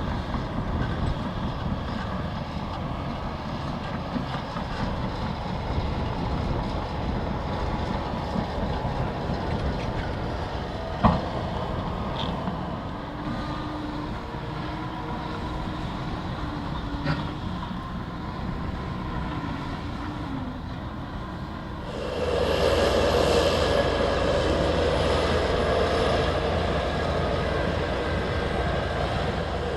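Liebherr crawler bulldozers running under load while pushing earth, a steady diesel engine and undercarriage sound. One sharp knock about eleven seconds in, and the machine sound grows louder about 22 seconds in.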